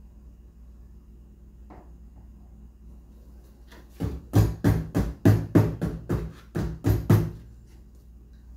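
About a dozen quick, even knocks in a row over some three seconds, roughly three a second, as a container of freshly made ice cream is tapped down on the worktop to settle it.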